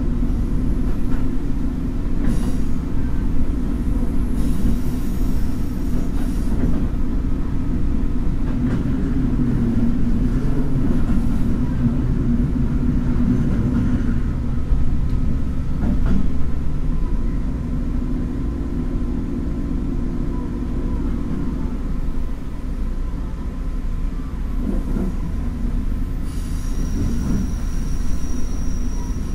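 Taiwan Railways DRC1000-series diesel railcar running uphill at around 30 km/h: a steady low rumble of engine and wheels on rail. Near the end a thin high wheel squeal comes in.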